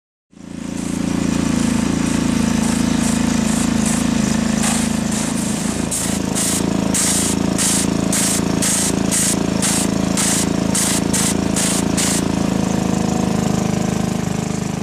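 Pressure washer running steadily, its high-pressure spray hissing. In the middle stretch the spray hiss pulses on and off about twice a second.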